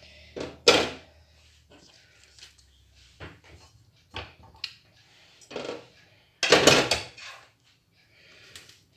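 Kitchen handling sounds from a metal baking pan and filled phyllo rolls as the rolls are coiled into the pan: scattered knocks and rustles, loudest in a cluster about six and a half seconds in.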